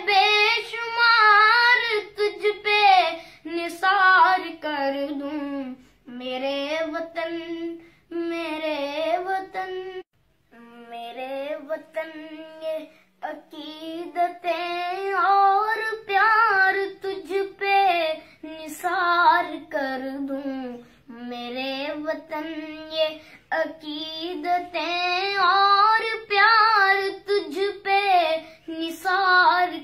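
A woman sings solo and unaccompanied in a high voice, in long held and bending phrases. The sound drops out briefly about ten seconds in.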